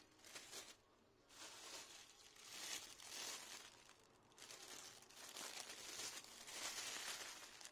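Thin clear plastic bag crinkling as it is handled and twisted, in three bouts, the longest two lasting about three seconds each.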